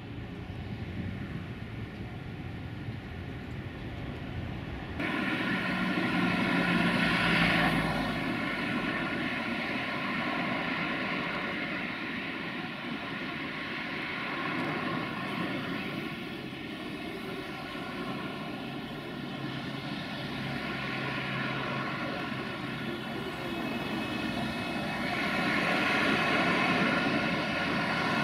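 Heavy-haul Volvo FH16 750 truck's diesel engine running as it moves a low-loader carrying a tram, a steady many-toned engine drone that swells louder about six seconds in and again near the end. The first few seconds hold quieter, different vehicle noise that changes abruptly to the engine sound.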